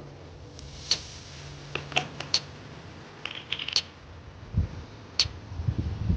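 Handling noises while oil is being put into a generator engine: a scatter of light clicks and taps from a plastic oil bottle and filler cap, then a few dull thumps about four and a half seconds in.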